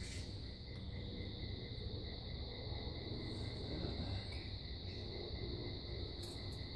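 A steady high-pitched whine over a low hum, with a few faint light clicks from vernier calipers being worked in the chainsaw's exhaust port.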